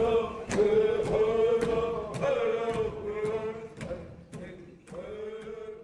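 Music: a chanted vocal line with long held notes over steady percussion strokes, about two a second, fading out toward the end.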